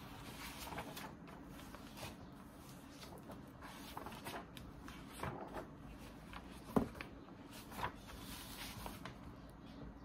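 Faint rustling and scattered light clicks over a low steady hum; the sharpest click comes about seven seconds in.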